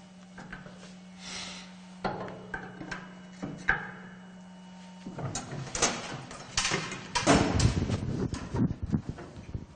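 Şahveli KSM-180 kebab skewering machine at work: a steady low hum with a few sharp clicks as metal skewers are handled, then from about halfway a dense run of clunks and sliding knocks from its press mechanism, loudest a couple of seconds before the end.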